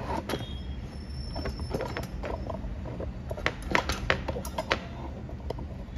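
A run of sharp light clicks and clatters from small hard objects being handled, bunched together about three and a half to five seconds in, over a steady low hum.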